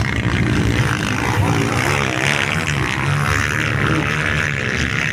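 Race motorcycle engines running and revving, their pitch rising and falling.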